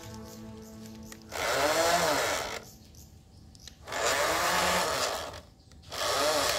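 Small electric motor of a radio-controlled battleship model whirring three times; each run rises in pitch and falls back over about a second. Background music fades out at the start.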